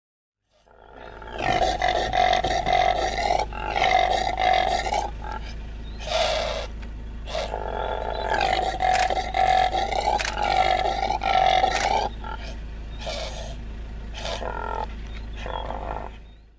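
Impala calling: a series of loud, hoarse calls with a clear pitch. Two long bouts of several seconds each are separated and followed by shorter single calls.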